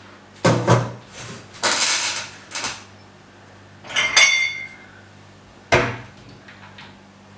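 Glassware being handled at a kitchen wall cupboard: a few knocks and scrapes, then a glass clinks with a short bright ring about four seconds in, followed shortly by a sharp knock.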